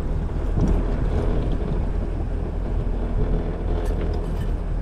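Fishing boat's motor running steadily with a low hum, and a few light clicks near the end.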